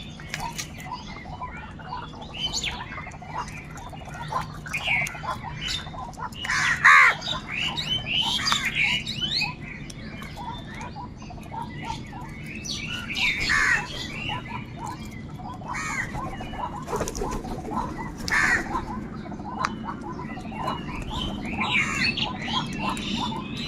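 Crows cawing loudly and continuously, many harsh calls overlapping, with a few louder calls standing out now and then.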